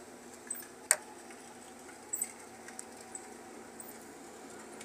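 Desoldering the wires of an amplifier's mains transformer with a soldering iron: a few light clicks and ticks as the iron and wires are handled. One sharp click comes about a second in, over a faint steady background.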